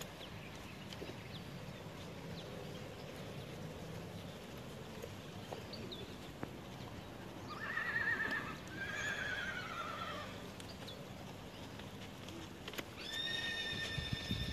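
A horse whinnying about eight seconds in: a high, quavering neigh in two parts lasting about three seconds. Near the end a long, steady high-pitched note begins.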